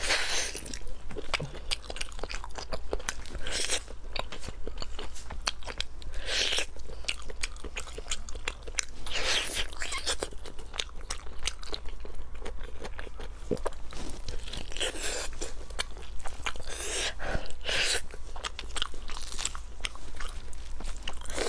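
Close-miked biting and chewing of braised pork on the bone, with repeated smacking clicks and short bursts of crackle every second or two as the meat and skin are torn with gloved hands.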